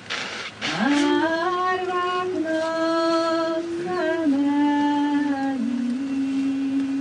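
A woman singing a folk song alone, without accompaniment, into a microphone. She holds long notes and slides between them, taking a breath just before one second in.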